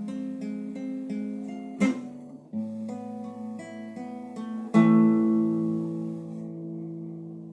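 Acoustic guitar closing a song: single picked notes, a strum about two seconds in, then a final strummed chord near the end that is left to ring and slowly fade.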